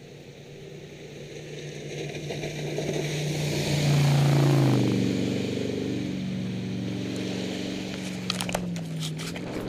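Jet boat's engine running at speed, growing louder as it approaches and passing close by about four seconds in with spray hissing, its pitch dropping as it goes past, then running on steadily as it moves away. A few short clicks near the end.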